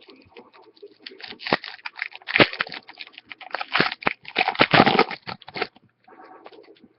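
A hockey card pack's foil wrapper being torn open and crinkled by hand: a dense run of crackling and tearing starts about a second in and stops shortly before the end.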